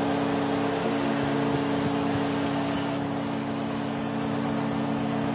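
Arena goal horn sounding a long, steady chord over a cheering crowd. It signals a home-team goal.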